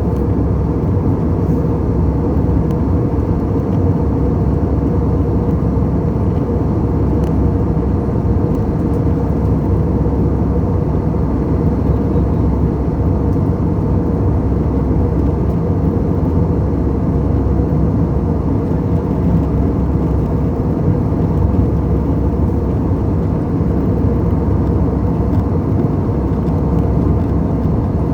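Airbus A320 jet airliner noise: a steady, unchanging low rumble with a constant hum on top.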